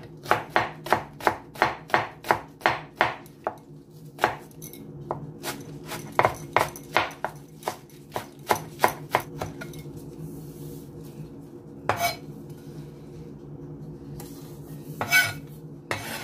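Chef's knife chopping spring onions on a plastic cutting board: quick sharp strikes, three or four a second, pausing briefly once, then thinning out to a few separate knocks in the last several seconds. A steady low hum runs underneath.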